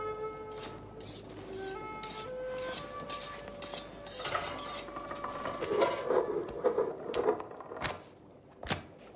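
Cartoon soundtrack: a few held music notes change pitch in the first three seconds, then kitchen clatter of dishes and utensils, with many short clicks and knocks.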